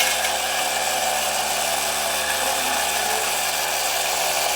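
Battery-powered cordless grass cutter running steadily at full speed, its electric motor and spinning blade making an even, loud whirring.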